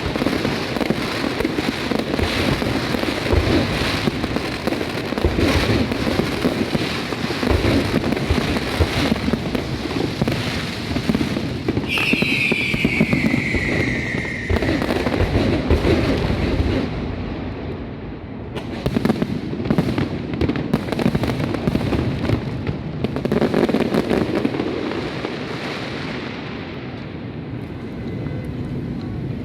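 Fireworks finale: a dense barrage of aerial shell bursts and crackle, with a falling whistle about twelve seconds in. The barrage thins to separate bangs in the second half and dies down near the end.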